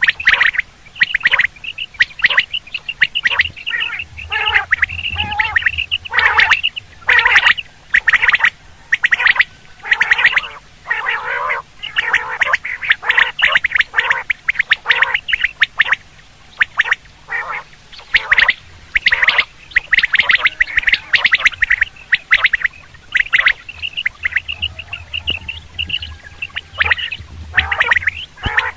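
Quail calling: a fast, nearly unbroken run of short, harsh notes with only brief pauses between them.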